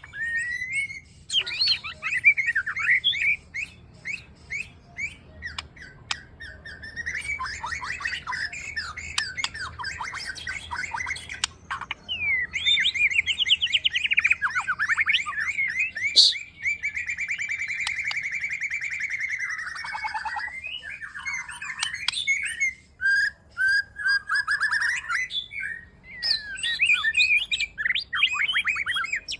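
White-rumped shama singing a long, varied song of rapid trills, chirps and sharp notes, with a sustained trilled phrase about halfway through.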